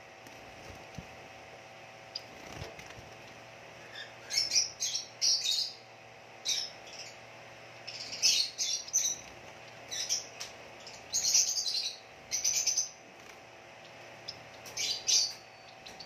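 Caged Bengalese finches giving short, high chirping calls in clusters of a few notes, beginning about four seconds in and recurring every second or two. A brief flutter of wings comes around the middle, over a faint steady hum.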